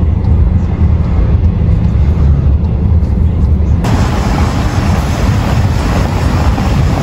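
Low, steady rumble of a moving vehicle heard from inside it. About four seconds in it cuts abruptly to a steady, broad rushing noise.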